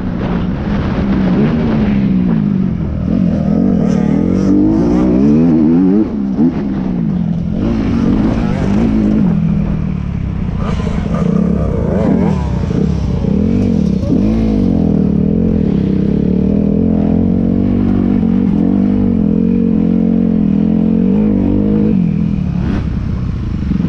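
Motorcycle engine running under way, its pitch rising and falling again and again as the revs change.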